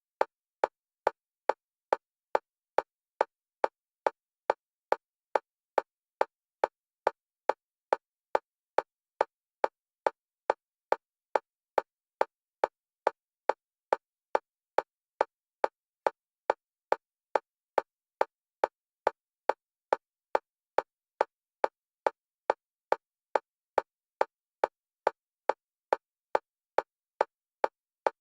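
Electronic metronome clicks of a single pitch for EMDR bilateral stimulation, alternating between the left and right stereo channels. They come evenly, a little over two a second, each click the same.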